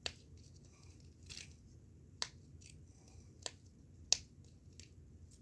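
Sharp pops from a mini triple dimple fidget toy as its dimples are pushed through, about eight at uneven intervals.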